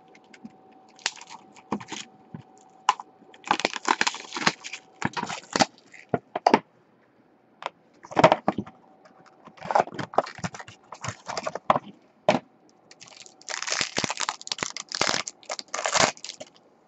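Hands opening a trading-card box and tearing into its foil wrapper: crinkling plastic and foil with scattered clicks and handling knocks in irregular bursts, the crinkling heaviest near the end.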